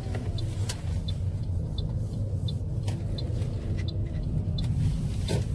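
Inside a moving car: steady low engine and road rumble, with the turn-signal indicator ticking about every 0.7 seconds and a few sharp knocks.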